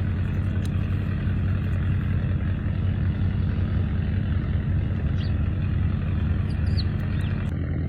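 A steady low engine drone, like an idling vehicle. A couple of brief high chirps from a small bird come about five and seven seconds in.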